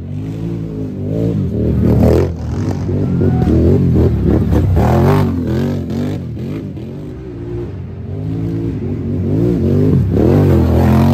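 Racing ATV engines revving hard as the quads climb a hill, the pitch rising and falling with the throttle. It is loudest about two seconds in, around the middle, and again near the end.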